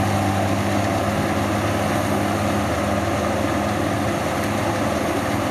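Two Kubota rice combine harvesters, one a DC60, running steadily while cutting and threshing ripe rice: a constant engine hum with a noisy mechanical wash over it.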